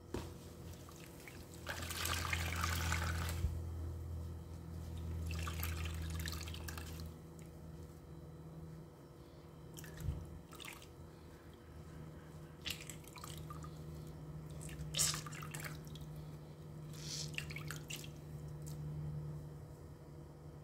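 A soaked sponge squeezed by hand over a basin of soapy water, several times, each squeeze sending water splashing and dripping back into the suds.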